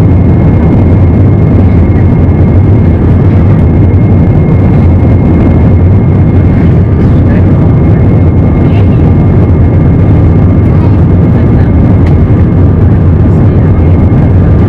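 Airbus A320 jet engines and airflow heard from inside the passenger cabin: a loud, steady rumble with a faint high whine running through it.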